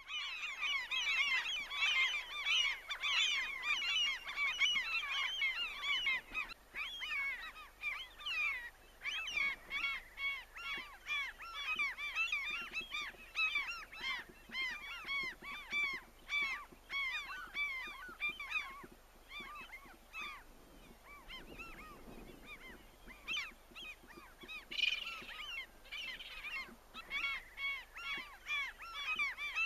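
A large flock of birds calling at once: a dense, unbroken chorus of short, overlapping calls.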